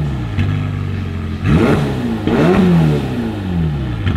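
Ferrari California's V8 on its stock exhaust, mufflers still in place, idling and then revved twice in quick succession from about one and a half seconds in. Each rev rises and falls back to a steady idle.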